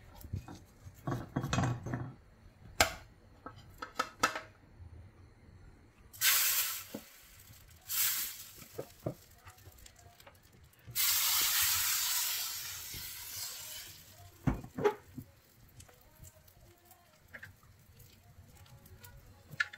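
A metal spatula clicking and scraping against a palappam pan, then rice batter sizzling in the hot pan for about three seconds, the hiss fading away.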